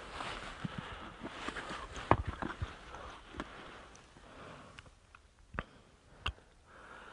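Rustling close to the microphone for the first few seconds, then a few scattered sharp clicks and knocks with quieter gaps between them.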